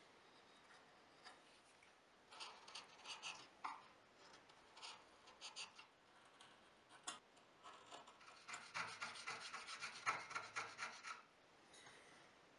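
Hand tools rubbing and scraping on wood in short, quiet strokes, with a quicker run of strokes a few seconds before the end.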